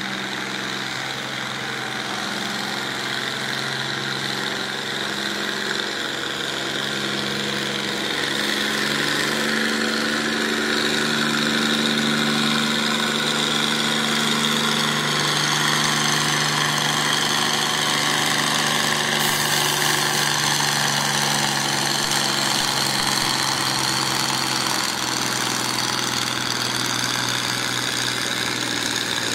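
Farmall tractor engine working hard under load as it pulls a weight sled, a continuous note that rises a little partway through and drifts slowly.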